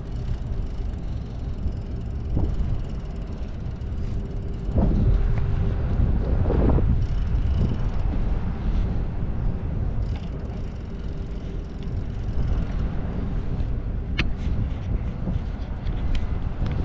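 Wind buffeting a bicycle-mounted action camera's microphone while riding, a dense low rumble that swells and fades, with the bicycle's running noise underneath. A faint steady hum runs through the middle, and there is a sharp click near the end.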